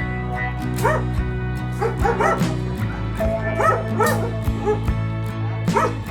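A dog yipping and barking in short repeated calls over background music.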